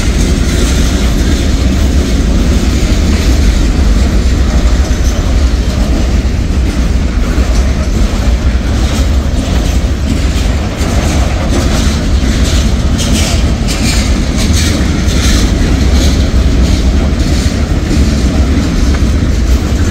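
Freight cars of a mixed manifest train rolling past close by: a loud, steady rumble with the wheels clicking over the rail joints. The sharp metallic clicks come thicker through the middle and later part.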